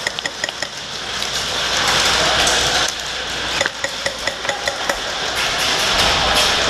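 Airsoft gunfire in an indoor arena: many sharp, irregular clicks and clinks of shots and BBs striking hard surfaces, over a rustling rush of the player's gear moving for a few seconds in the middle.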